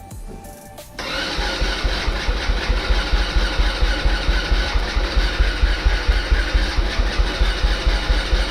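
Electric starter cranking the Vader 125 Grom clone's 125 cc single-cylinder four-stroke engine for several seconds without it catching, starting abruptly about a second in, with an even chug of compression strokes: the engine has compression but will not fire.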